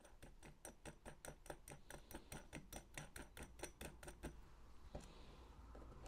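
Fast, even ratchet clicking, about six clicks a second with a light metallic ring, as nuts are run down onto the bolts of a scale-model tank's aluminium sprocket hub; it stops about four seconds in, followed by a single knock.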